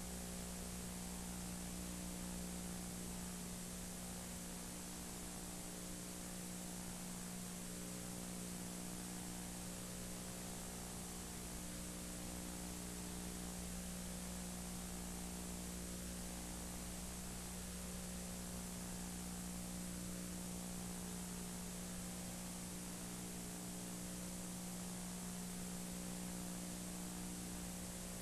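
Steady hiss with a constant low electrical hum and buzz, unchanging throughout: the background noise of an old recording with no other sound on it.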